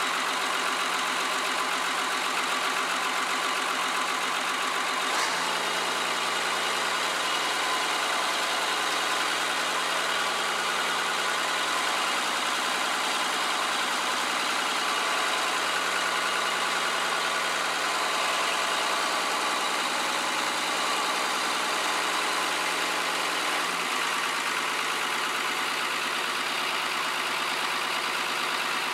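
Diesel engine of a Fiat-Allis wheel loader idling steadily, its tone shifting about five seconds in and again near the end.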